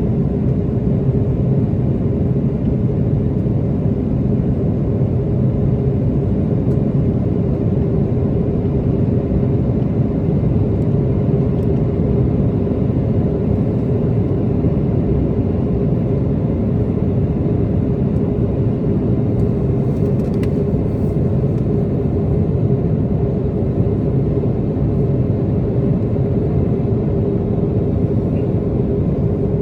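Steady cabin noise inside an Airbus A330-300 airliner on approach, with the Pratt & Whitney PW4000 engines and the airflow making an even rumble and a steady hum running through it.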